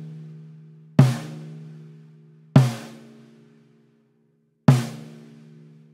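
Snare drum with a Remo Controlled Sound coated head struck in the centre three times, a second or two apart. Each hit leaves a sustained ringing tone and a long snare-wire sizzle fading away, the sizzle lasting because the bottom head is tuned high.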